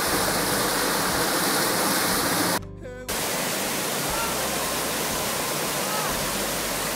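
Small waterfall pouring onto rocks and into a pool, a steady rushing splash of water. It cuts out for about half a second around two and a half seconds in, then carries on.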